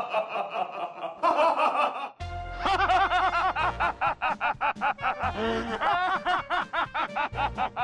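Men laughing in quick, even 'ha-ha-ha' runs over background music; a bass-heavy music track comes in about two seconds in.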